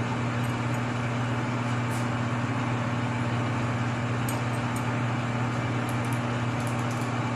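Metal lathe running steadily with its chuck and a steel rifle barrel spinning, a constant low hum, with a few light ticks.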